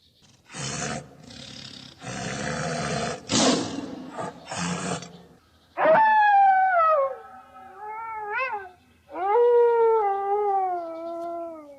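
Animal calls: several harsh, noisy bursts, then from about halfway three long pitched calls, each falling in pitch.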